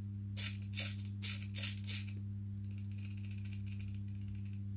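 Micro servo driving the model glider's elevator, whirring in about five short bursts in the first two seconds as it is moved back and forth, then only a faint steady hiss.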